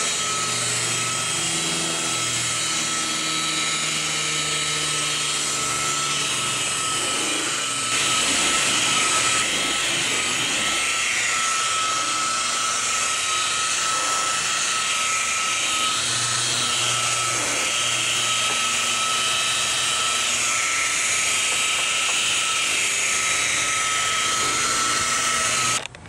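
DeWalt rotary polisher with a foam pad running at low speed, buffing spider-web surface scratches out of a car's painted hood: a steady motor whine with a high tone over it, which cuts off abruptly near the end.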